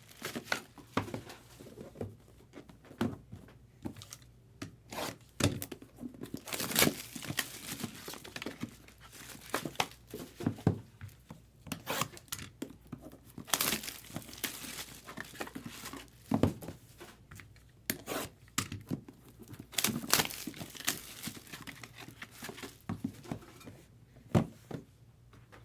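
Packaging on trading-card boxes being torn and crinkled by hand: irregular rustling and tearing with scattered sharp crackles and taps.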